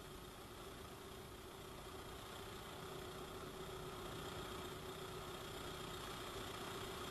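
Rover K-series eight-valve engine idling steadily and faintly, growing slowly louder, while the idle mixture screw on its integral float carburettor is being adjusted.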